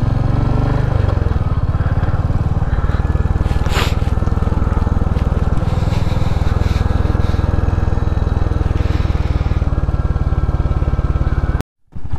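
Royal Enfield Hunter 350's single-cylinder engine running steadily as the motorcycle rides along, with a short hiss about four seconds in. The sound drops out for about half a second near the end.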